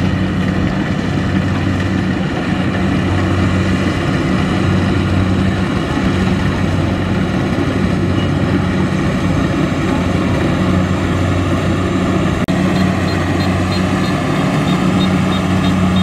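Kubota DC-70Plus combine harvester's diesel engine running steadily under load as the machine cuts and threshes rice, a deep even hum under dense mechanical noise. Faint, regular high chirps join in during the last few seconds.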